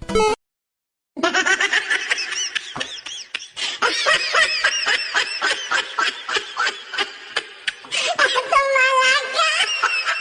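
Hearty laughter in rapid, repeated bursts. It starts after a short gap about a second in and carries on, with a longer held vocal note near the end.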